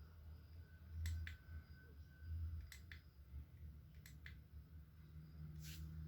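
A few sharp, light clicks and taps from small objects being handled, with a brief rustle near the end, over a low steady hum.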